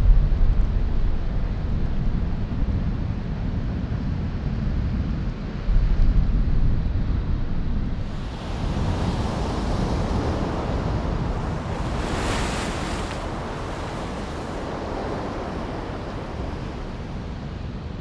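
A giant ocean wave breaking: a deep, heavy rumble with wind on the microphone, opening up about eight seconds in into a broad hiss of churning whitewater that is brightest a few seconds later and then slowly fades.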